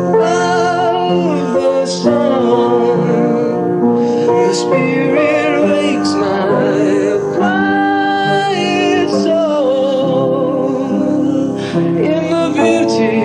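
Music: a solo voice singing long, wavering held notes with vibrato over steady accompaniment.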